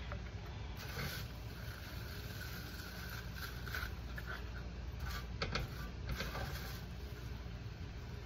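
Dried parsley leaves rustling and crackling as they are scraped up by hand off a metal grill rack, with a few sharper crackles about a second in and past the middle, over a steady low hum.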